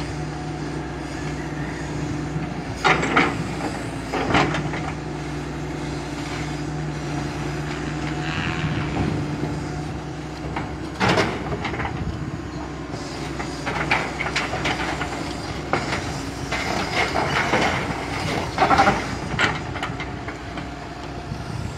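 Hitachi EX200 tracked excavator's diesel engine running steadily as its steel tracks clank and rattle across a steel barge deck. Sharp clanks come about three and four seconds in, once near the middle, and several in quick succession in the last few seconds.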